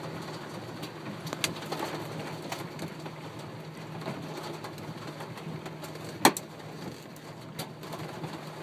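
Large hailstones hitting a van's metal roof, heard from inside the van: scattered sharp hits over a steady hiss, with one loud bang about six seconds in. A faint steady low hum runs underneath.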